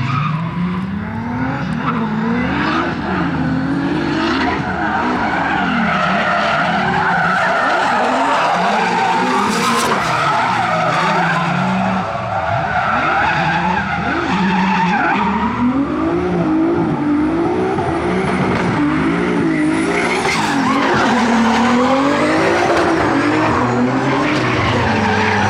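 Drift cars at full throttle on track, engines revving up and down again and again as they slide, with continuous tyre squeal and skidding.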